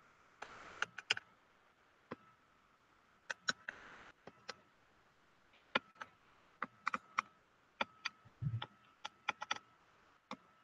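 Faint, irregular sharp clicks and taps from a computer input device as a circuit is drawn on screen, about twenty of them, bunched more thickly in the second half, with a dull thump about eight and a half seconds in. A faint steady high tone runs underneath.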